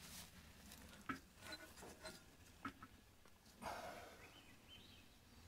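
Near silence, with a few faint clicks and rustles as a hand handles the old spark plug wires on a truck engine.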